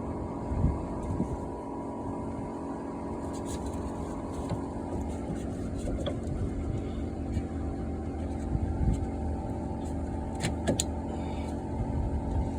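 A steady mechanical hum, like a motor or engine running, with a few light metallic clicks of parts being handled.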